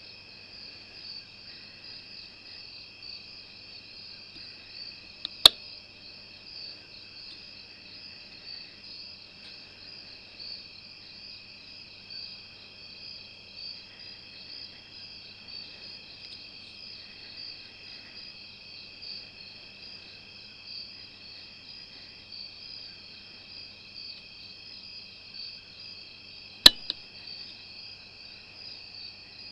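Steady night chorus of crickets and other insects. Two sharp knocks cut through it, one about five seconds in and one near the end.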